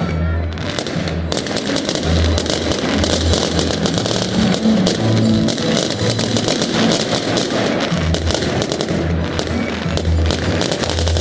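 Many fireworks banging and crackling in quick succession throughout, with music with a deep, pulsing bass playing underneath.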